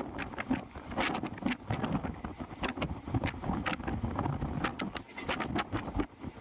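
Passenger train running on the rails: a steady rumble with the carriage rattling and many irregular clicks and knocks.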